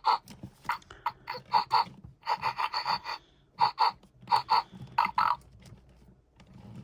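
Hasbro FurReal Friends Snifflin' Sawyer polar bear cub toy playing its sniffing and snorting sounds through its small speaker: quick, irregular clusters of short sniffs, easing off near the end.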